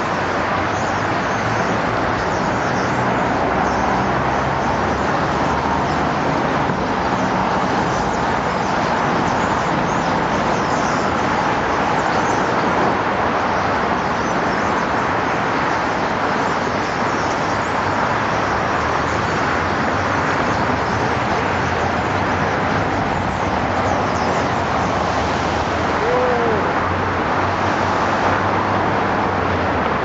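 Steady din of city road traffic: an even rushing noise with a low rumble underneath.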